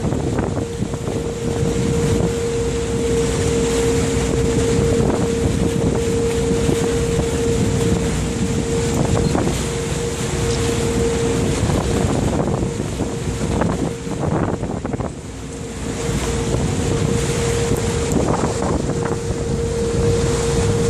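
A tour boat's engine running steadily on the river, with a constant hum over a low rumble and wind buffeting the microphone. The sound dips briefly about three-quarters of the way through.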